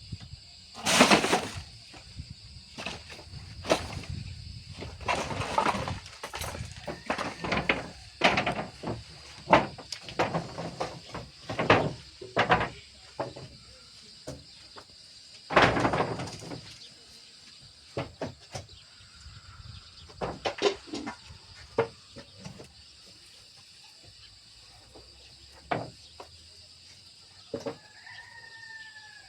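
Irregular knocks, clatter and scrapes of things being handled, denser in the first half and sparser later, with crickets chirping steadily behind.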